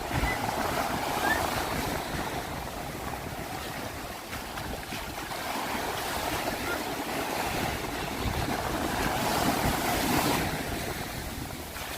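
Ocean waves washing in, with a steady rush that swells to its loudest shortly before the end, and wind buffeting the microphone.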